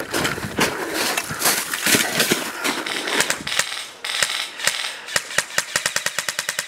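Crunching and rustling of snow and gear from movement close to the microphone, then an airsoft gun firing: a few separate shots about four seconds in, then a rapid, even stream of about ten shots a second near the end.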